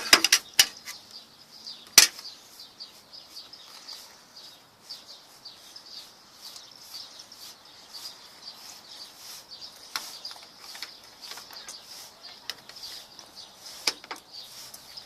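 A sharp plastic click from a fidget spinner's case about two seconds in, with a few lighter clicks near the end. Faint high chirping runs underneath throughout.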